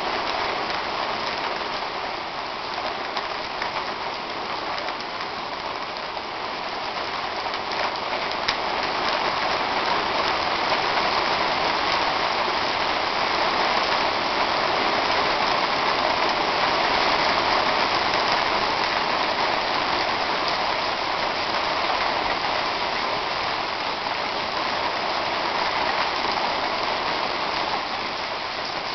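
Hard rain pouring down onto a swimming pool and paved patio, a steady hiss that swells louder partway through and eases a little near the end.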